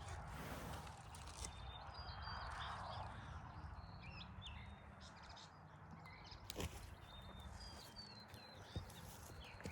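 Small birds chirping in short, scattered calls over a faint outdoor background hum, with a couple of sharp knocks later on.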